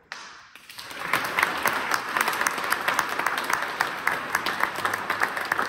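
Audience applauding: it starts abruptly and builds within about a second into steady, dense clapping.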